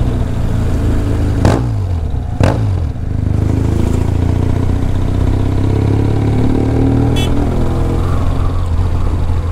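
BMW R1200GS boxer-twin engine and exhaust running while the motorcycle is ridden. Two sharp cracks come about a second apart near the start, each followed by the revs falling, and then the engine runs steadily.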